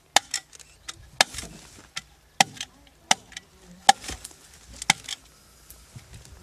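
A series of sharp knocks and clicks, about one a second and unevenly spaced, over a low steady background.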